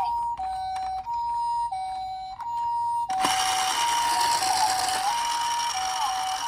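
Toy ambulance minicar's electronic two-tone 'pipo-pipo' siren, alternating high and low about every two-thirds of a second in the Japanese ambulance pattern. About three seconds in, a loud steady hiss joins it.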